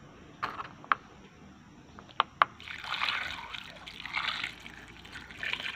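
Water poured into a metal pot packed with white corn cobs, splashing over the cobs in uneven surges, topping up the water for boiling. A few sharp clicks come before the pour starts.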